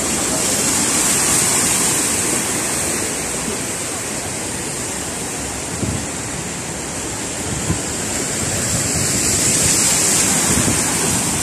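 Rushing floodwater on a street, with cars driving through it, their tyres sloshing and throwing up spray: a steady rushing noise that swells in the last few seconds as a car ploughs through close by.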